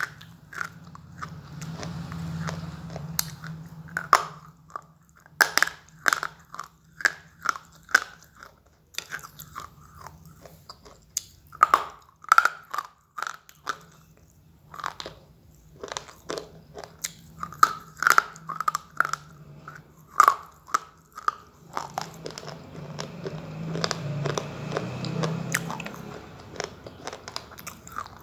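Slate pencils being bitten and chewed close to the microphone: a run of sharp, brittle crunches, often several in quick succession, with stretches of steadier chewing near the start and toward the end.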